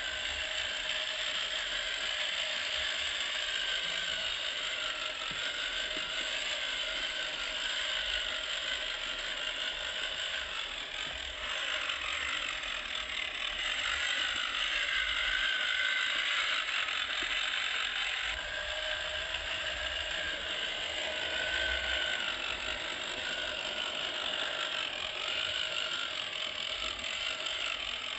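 Electric motor and gearbox of a homemade 1/10-scale RC Jeep Rubicon crawler whining steadily as it drives over dirt and gravel, the pitch wavering up and down with the throttle.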